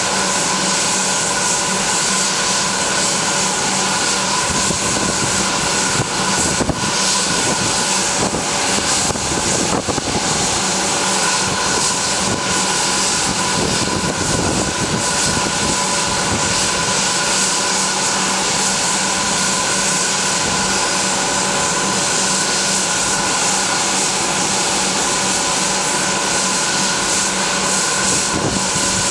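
Bombardier Global Express business jet's rear-mounted Rolls-Royce BR710 turbofans running at idle: a steady whine of several held tones over a constant hiss.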